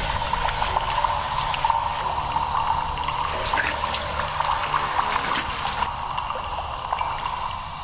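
Water running from a tap into a washbasin, with irregular splashing as hands cup the water onto a face; it fades out near the end.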